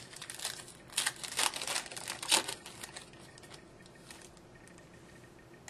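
Foil wrapper of a hockey card pack crinkling as it is torn open, in a string of rustles that are loudest in the first two and a half seconds and then fade out.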